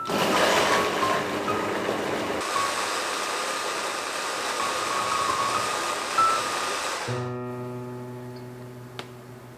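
Braun hand blender with its chopper-bowl attachment running, puréeing chunks of apple, onion, ginger and garlic in water; the whirring changes about two seconds in and cuts off about seven seconds in. Soft piano music plays throughout, with a single sharp click near the end.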